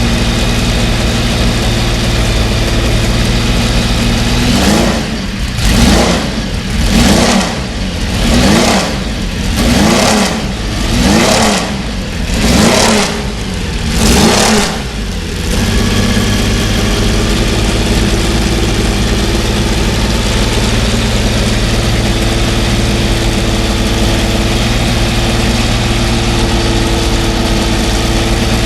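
Porsche 917's air-cooled flat-12 racing engine idling, then blipped through a run of quick throttle revs about every second and a half, each rising and falling, before it settles back to a steady idle.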